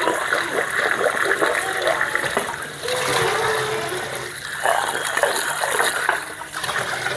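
Kitchen tap running onto a stone mortar as it is rinsed and scrubbed by hand, water splashing over the stone into a steel sink.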